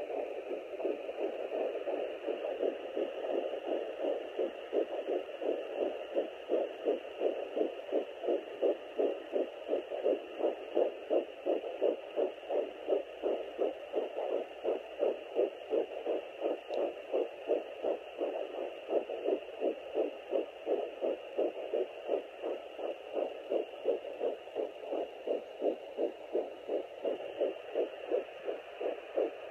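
Fetal heartbeat at about ten weeks' gestation, picked up through a Sonoline B handheld fetal Doppler: a rapid, regular pulse of nearly three beats a second over a steady static hiss. The beat comes through strongest in the middle stretch and weakens near the end.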